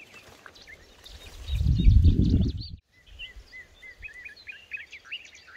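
Several birds singing and chirping with quick repeated notes and short falling calls. About a second and a half in, a loud low rumble lasts about a second and then cuts off abruptly.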